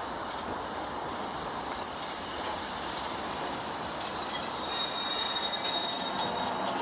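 LMS Stanier Black Five 4-6-0 steam locomotive 45305 and its coaches rolling slowly along the platform with a steady rumble that slowly grows louder. From about three seconds in, wheel flanges squeal in thin, high, steady tones as the train takes the curved track.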